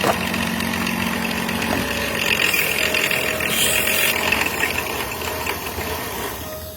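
Car engine idling steadily, easing off slightly near the end.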